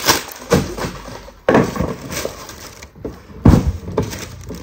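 Clear plastic packaging crinkling and rustling as dish-rack parts are unwrapped, with several sharp crackles and clinks as the pieces are handled.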